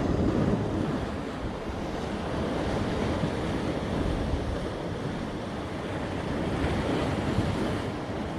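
Sea surf washing against a rocky shore, with gusty wind buffeting the microphone; a steady rushing noise that swells and eases a little.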